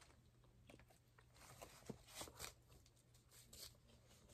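Near silence, with a few faint crinkles and taps as a foil takeaway container and its bag are handled.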